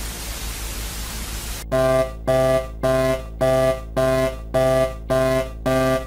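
TV static hiss for under two seconds, cut off by eight short, buzzy electronic alert beeps, about two a second, over a low steady drone.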